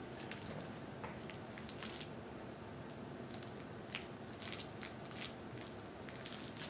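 A baby handling soft toys: scattered faint crinkles and clicks, a cluster of them a few seconds in, over a steady low hiss.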